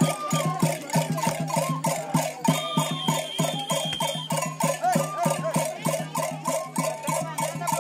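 Andean carnival folk music played for a yunza tree dance: a fast, steady beat under a repeating melody, with a high held note for about two seconds in the middle.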